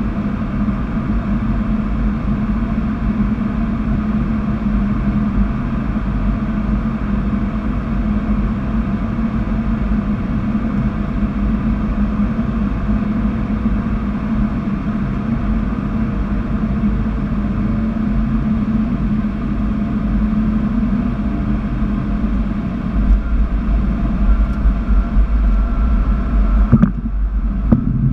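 Cockpit noise of a Cessna Citation CJ3+ business jet, with its two Williams FJ44 turbofans, on final approach: a steady rush of airflow and engine noise over a low hum. In the last few seconds a deeper rumble and uneven bumps come in as the jet touches down and rolls along the runway.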